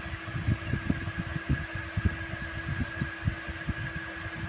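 Irregular soft low knocks and rubbing as fingers dab and rub makeup onto a plastic doll, over a steady fan hum.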